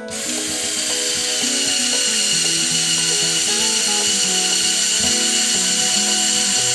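The small electric motor and plastic gearing of a Mould King 13107 building-block crane model whine steadily as the boom is raised. Background music plays underneath.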